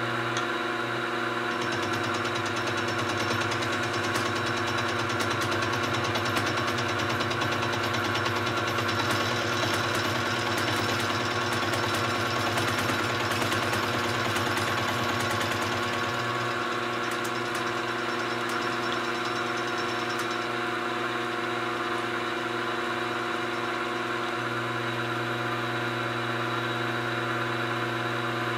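Milling machine running, its end mill cutting a flat on a round metal bar held in a collet block: a steady motor hum with a rough cutting chatter that eases off about halfway through.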